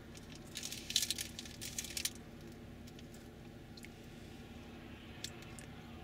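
Faint steady drone of distant engines, with a burst of crackling and rustling close to the microphone from about half a second to two seconds in and a few single clicks later.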